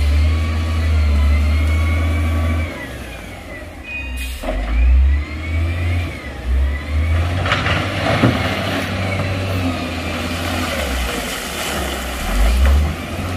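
Heavy construction vehicle's diesel engine running and revving, its low rumble swelling and dropping, with a rising and falling whine in the first few seconds and a sharp click about four seconds in.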